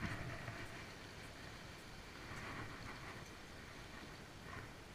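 Sea washing around the rocks, with a light rush of wind on the microphone; the wash swells briefly at the start and again about two and a half seconds in.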